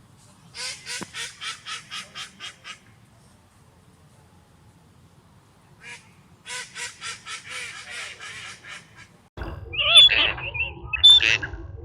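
Duck quacking in two quick runs of about ten harsh quacks each, with a quiet pause between them. Near the end a different recording starts: louder, clearer high-pitched bird calls.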